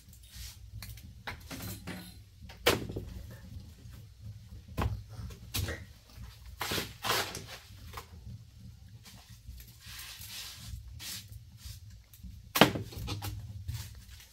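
Irregular knocks and clatter of objects being handled, with a sharp bang about three seconds in and the loudest one near the end, and a few brief scraping sounds in between, over a steady low hum.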